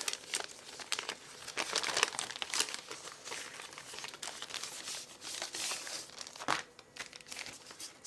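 Thin clear plastic bag crinkling in irregular bursts as it is handled, with paperwork rustling as it is pulled out.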